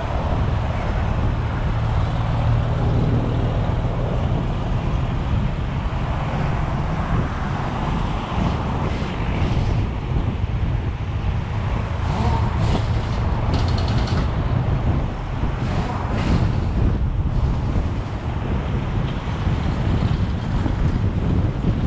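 Steady highway traffic and road noise heard from a moving vehicle, with a low engine rumble; a heavy truck runs alongside at the start.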